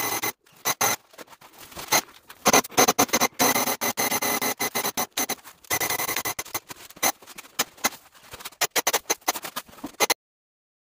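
Graco paint spray gun hissing in short, irregular on-off bursts as its trigger is pulled and released. The spraying stops near the end.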